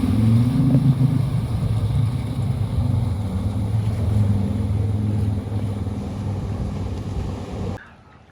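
Four-wheel-drive vehicle's engine running as it drives slowly, its pitch rising briefly about a second in and then holding steady; the sound cuts off suddenly just before the end.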